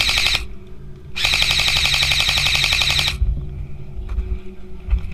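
Airsoft electric rifle (AEG) firing full-auto in two bursts: one cutting off about half a second in, and a second, longer burst of about two seconds starting just after a second in. The shots come as a rapid, even stream of clicks.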